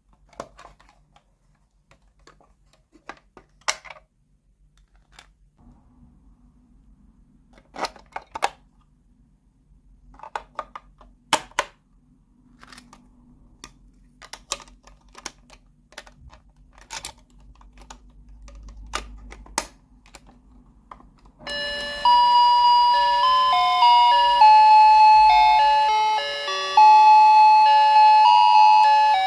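Small plastic toy pieces clicking and tapping as they are handled, then about two-thirds of the way in a toy's electronic sound chip starts a loud, simple beeping melody that plays to the end.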